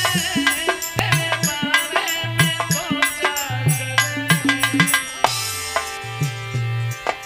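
Instrumental music with a melody over a steady drum beat, in the tabla/dholak style. About five seconds in, the melody gives way to held chords with a bright, hissy shimmer.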